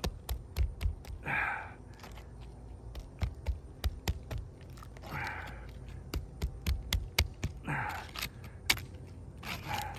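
A small, sharp tool repeatedly clicking and scraping against asphalt shingles as hardened adhesive seal strips are cut loose. Four breathy exhales from the worker come at intervals.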